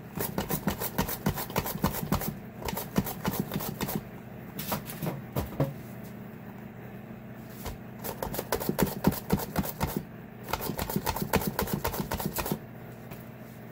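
Cucumbers being sliced on a plastic V-blade mandoline: runs of rapid back-and-forth scraping strokes with short pauses between them. A food dehydrator hums steadily underneath.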